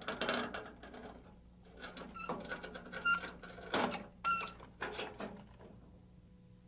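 Irregular metal clicks, clanks and rattles, a few with short ringing pings, as metal parts of a Norwood Lumbermate portable band sawmill are handled and fitted during setup. The clatter dies away about five and a half seconds in.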